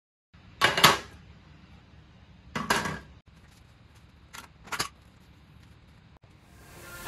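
Several short knocks and clicks of things being handled, over faint room tone: two close together about half a second in, one near three seconds, and two more around four and a half seconds. The engine is not running. Electronic music starts to fade in near the end.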